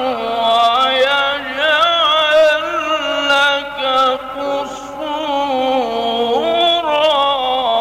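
A male Quran reciter chanting a long, ornamented melismatic phrase in the Egyptian mujawwad style. His voice slides and trills up and down in pitch with hardly a break.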